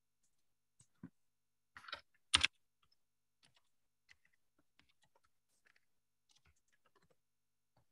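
Typing on a computer keyboard: irregular, faint key clicks, with a louder burst of keystrokes about two seconds in.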